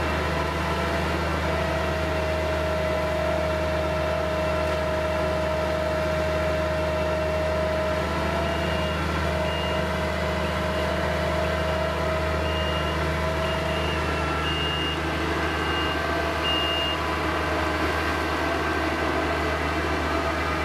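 New Holland skid-steer engine running steadily with a constant whine over its low hum. Through the middle, a high reversing alarm beeps in short, unevenly spaced beeps.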